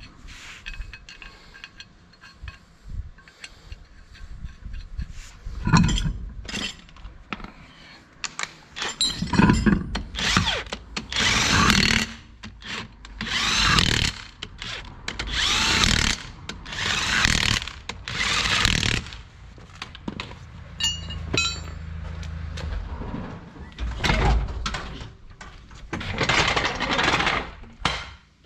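A hand-held power tool run in short bursts, about six of them, each a second or two long, with clicks and knocks of metal parts in between.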